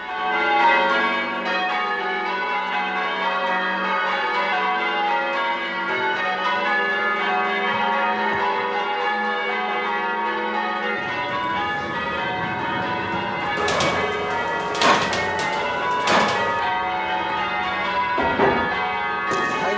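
English change-ringing tower bells rung in changes, their tones overlapping and ringing on in a dense, continuous peal. In the second half, several sharp knocks cut through the ringing.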